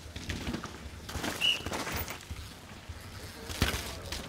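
A downhill mountain bike ridden past on a wet, muddy track: irregular clatter and knocks from chain and suspension, with tyres working through the mud. There is a short high chirp about a second and a half in, and a sharp knock near the end.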